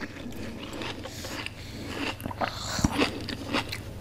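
Two people eating instant ramen noodles: chewing and mouth noises, with scattered small clicks of chopsticks and forks against the bowls and one sharper click near three seconds in.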